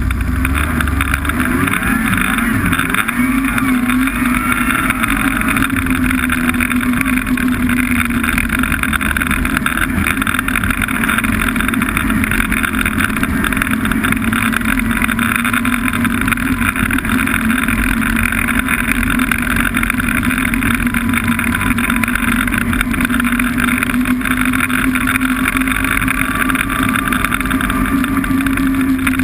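Snowmobile engine running steadily at cruising speed, its pitch drifting only slightly.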